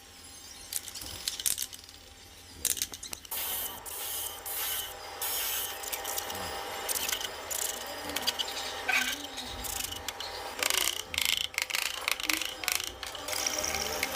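Irregular bursts of hissing, scraping noise from hand work on a wooden table, quieter for the first couple of seconds, then coming thick and fast.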